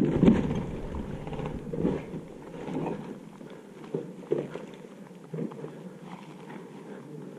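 A heavy thud at the start, then irregular footsteps crunching and knocking over loose broken bricks and concrete rubble, about one step a second.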